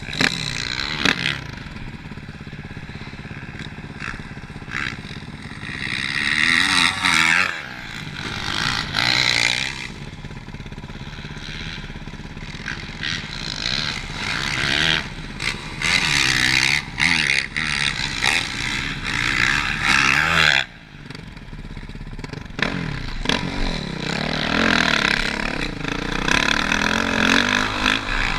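Motocross bike engine revving hard and backing off again and again as it is ridden around a track. The throttle closes briefly about two-thirds of the way through, then the engine picks up again.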